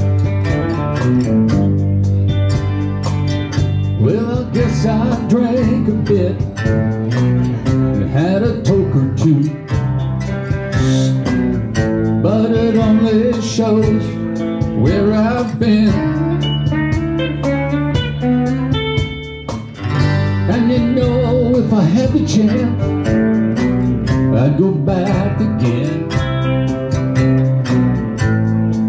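Live country-blues band playing: acoustic guitar strumming under a lead line of bending notes, with a brief drop in the music about two-thirds of the way through.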